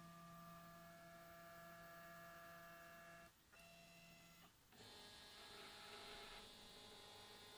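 Stepper motors of a GRBL CNC machine whining faintly as its axes home toward the limit switches. The steady tone breaks off briefly about three seconds in and again about four and a half seconds in, then a different, higher-pitched tone sets in.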